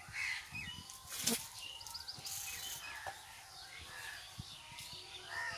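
Small birds chirping now and then over quiet rural outdoor background, with a couple of short rustling noises, the loudest about a second in.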